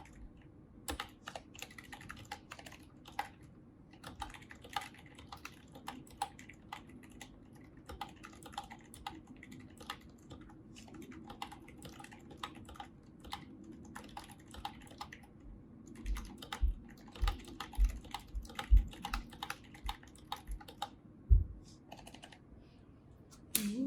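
Typing on a mechanical keyboard fitted with lubed Zilents V2 silent tactile switches: keystrokes in uneven runs, louder and heavier in the last few seconds.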